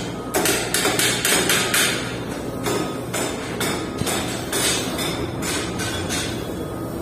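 Repeated hammer blows, about three a second with a short break midway, ending about six seconds in, over a steady low hum.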